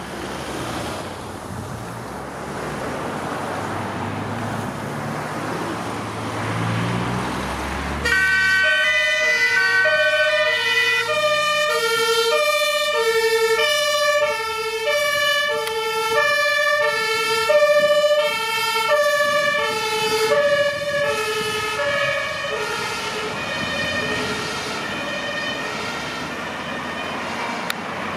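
Two-tone emergency siren on a Mercedes emergency-doctor van, switched on about eight seconds in and alternating steadily between a lower and a higher tone, growing fainter near the end. Before it comes on, the van's engine can be heard rising in pitch under road noise.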